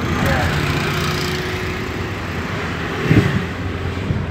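Car engine and road noise heard from inside the cabin while driving, steady throughout, with one short thump about three seconds in.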